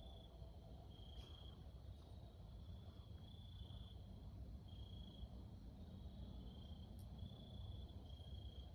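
Faint chorus of crickets: high trills about half a second long, one after another, over a low steady rumble, with a couple of brief clicks.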